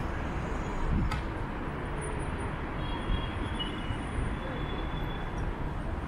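City street traffic noise at an intersection: a steady rumble of passing vehicles, with a short knock about a second in.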